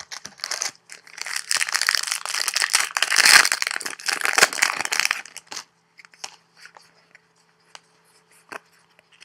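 A trading card pack's wrapper being torn open and crinkled, a dense crackling tear lasting about five seconds, followed by a few light clicks as the cards are handled.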